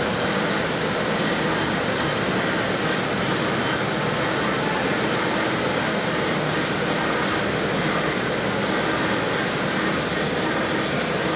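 CNC router spindle milling a styrofoam block with a straight end mill, together with a dust-extraction vacuum drawing off the foam chips: a steady whirring machine noise with faint steady tones.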